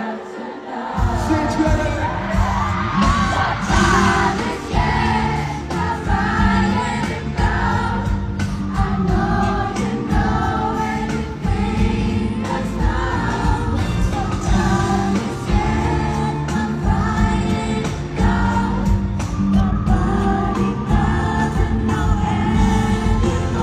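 Pop music with singing over a full band; a heavy beat with bass and drums comes in about a second in.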